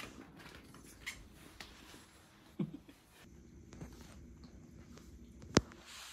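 Cats and a kitten padding and scampering about on floor mats, with a few faint taps, a soft thump about two and a half seconds in, and one sharp knock about five and a half seconds in.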